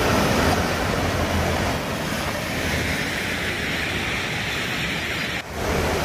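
River in flood, high and muddy, rushing past: a steady, loud rush of fast water. The sound breaks briefly about five and a half seconds in.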